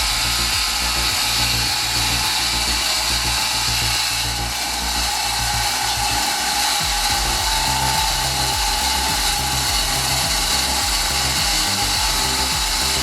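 Wood-Mizer WM1000 band sawmill cutting through a large red oak log, a steady machine noise with a high whine, over background music with a changing bass line.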